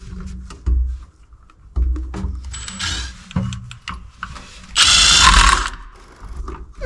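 Clicking, rattling and dull knocks of tools and materials being worked by hand, with a loud, harsh burst of noise lasting under a second about five seconds in.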